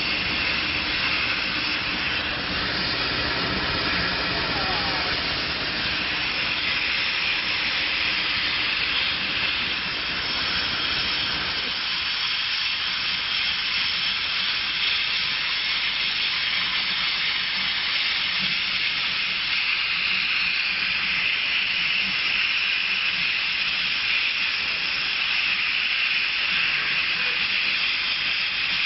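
Laser cutting and engraving machine running while it cuts paper: a steady hiss, with a lower hum underneath that drops away about twelve seconds in.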